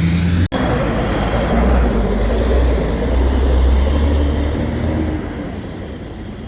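Road traffic passing close by: car and truck engines and tyre noise. There is a brief break in the sound about half a second in.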